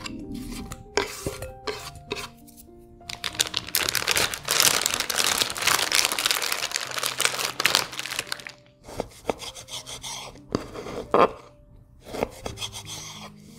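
A plastic zip-top bag of sliced pepperoni crinkling loudly for several seconds as it is handled and opened. Then come a few sharp knocks of a knife cutting through stacked pepperoni onto a wooden cutting board, over background music.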